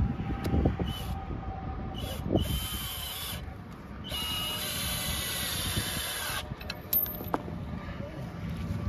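Cordless drill driving screws to fasten a board to a wooden post: a few short runs, then one longer steady run of about two seconds in the middle.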